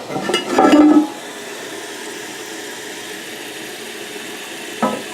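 Water rushing in a toilet, loudest and most turbulent in the first second. It then settles into a steady hiss of running water as the newly fitted fill valve refills the tank.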